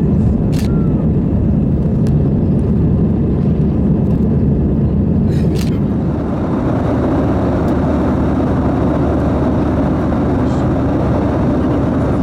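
Steady, loud cabin noise of an Airbus A320-200, the rush of engines and airflow heard from a passenger seat. About six seconds in, the noise changes character, becoming less deep and more hissing. There are a couple of faint clicks.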